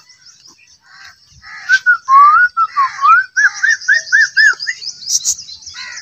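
A series of clear whistled notes that glide up and down, then a quick run of about five short arched notes, over a steady high chirping in the background.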